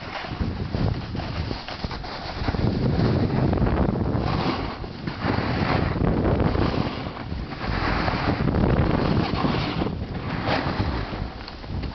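Wind rumbling on the microphone of a snowboarder riding downhill, with several surges of hiss as the board's edge scrapes across packed snow in turns.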